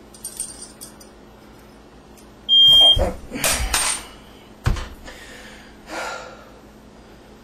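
A smoke alarm gives one short, loud, high-pitched beep about two and a half seconds in. It is followed by rustling noises and a single thump.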